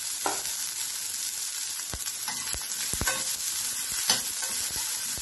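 Chopped onion sizzling in hot mustard oil in a steel pan, with a steel spoon scraping and clinking against the pan as it is stirred, several sharp clinks over the steady hiss, the loudest about four seconds in.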